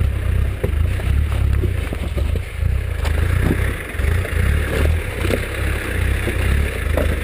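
Land Rover Defender engine running low and uneven as the 4x4 crawls over loose rock. Scattered clicks and knocks of stones shifting are heard over it.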